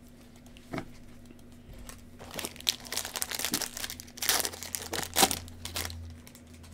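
Foil wrapper of a Panini Prizm basketball card pack crinkling and tearing as gloved hands rip it open. The crackling runs densely from about two seconds in to about six seconds in.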